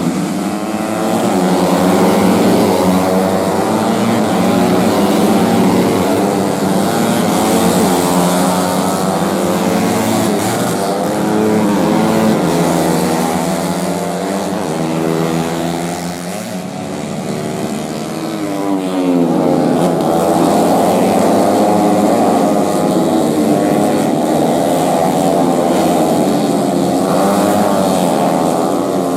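Several four-stroke racing motorcycles with big-bore kits running at high revs, their overlapping engine notes rising and falling as they pass. The sound eases off about two-thirds of the way through, then swells again as more bikes sweep by.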